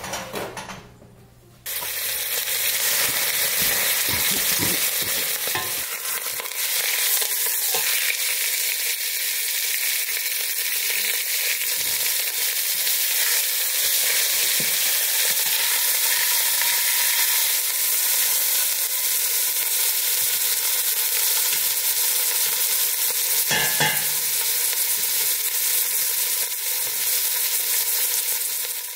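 Chuck roast searing in hot olive oil in a stainless steel stockpot: a steady sizzle that starts about two seconds in, with a few clinks of metal tongs against the pot as the meat is turned.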